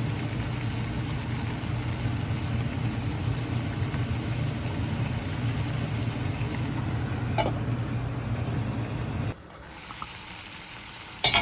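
A steady low drone with a hiss over it, which cuts off abruptly about nine seconds in; a sharp click or knock near the end.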